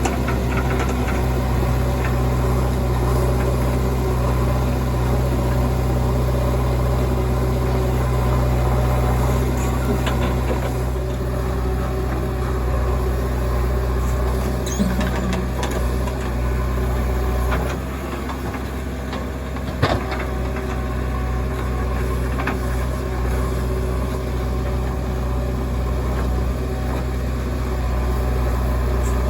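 Heavy diesel engines of a backhoe loader and truck running steadily, with the level dipping briefly about eighteen seconds in and a sharp knock just after.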